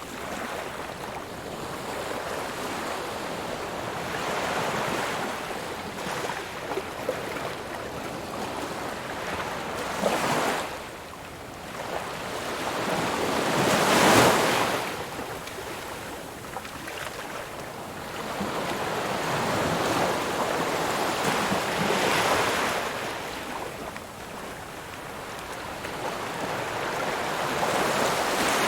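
Ocean waves breaking and washing on a shore, a continuous surf that swells and ebbs, with a loud crash about 14 seconds in.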